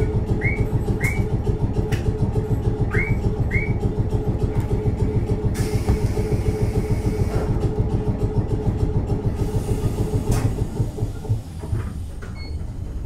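Keifuku Electric Railroad (Randen) Kitano Line car 631 running, heard from on board: a steady low rumble of motors and wheels on rail with a fast pulsing beat and a faint steady motor tone. Near the end the running sound quietens as the car eases off.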